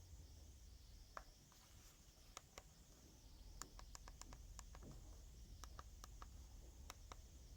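Near silence: faint low hum with a scatter of faint, irregular short clicks, several close together around the middle.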